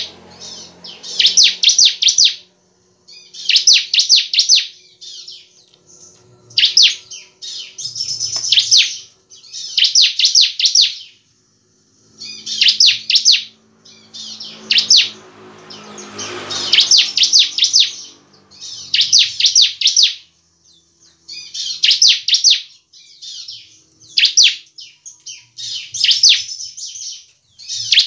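Bar-winged prinia (ciblek) singing in full, steady song: short bursts of rapid, buzzy high chirps repeated about every two seconds.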